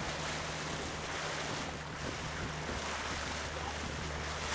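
Inflatable boat under way at sea: water rushing and splashing along the hull, with a steady low motor hum underneath and wind buffeting the microphone.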